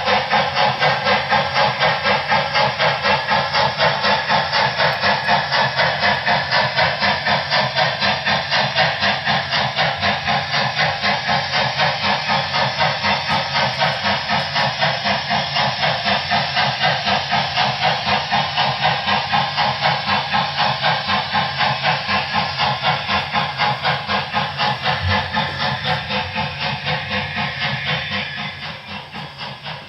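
Sound system of an HO-scale Broadway Limited Paragon 4 GS-4 steam locomotive model playing a steady, rapid steam exhaust chuff, with hiss, as it runs. The chuffing drops in volume about two seconds before the end.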